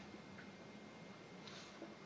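Near silence: faint room tone with a few soft ticks, the clearest about one and a half seconds in.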